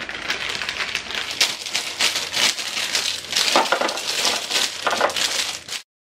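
Plastic produce bag crinkling as green bell peppers are tipped out of it and knock into a clear plastic fridge bin: a dense run of rustling and light knocks that cuts off abruptly near the end.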